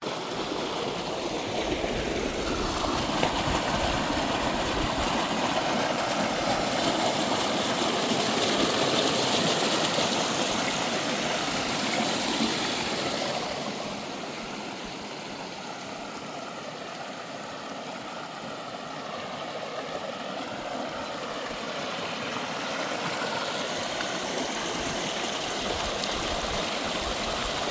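Steady rush of creek water flowing over rocks, an even hiss that drops noticeably in loudness about halfway through.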